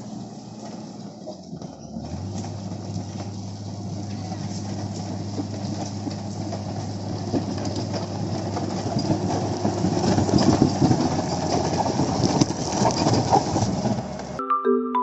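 A heavy machine's diesel engine running and working, with a steady low hum under a rattling, clattering noise that grows louder, then cuts off suddenly near the end.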